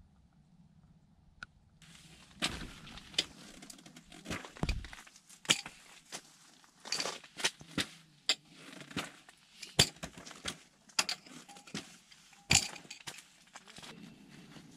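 A folding camp cot being put together: after a quiet couple of seconds, an irregular run of sharp clicks and knocks as its blue aluminium poles and plastic leg fittings are handled and snapped into place.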